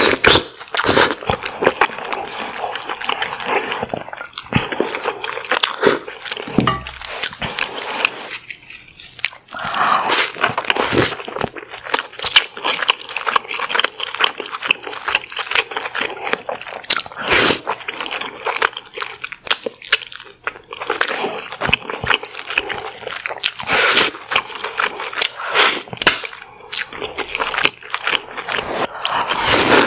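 Close-miked chewing of buttery king crab meat: wet mouth sounds with many sharp clicks, broken by a short pause about a third of the way in.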